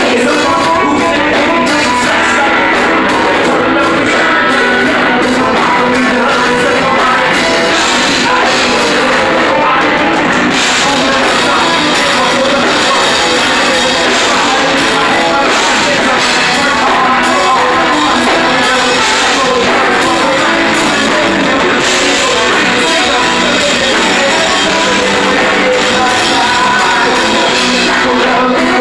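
Live rock band playing loud and steady: drums, electric guitar and a singer.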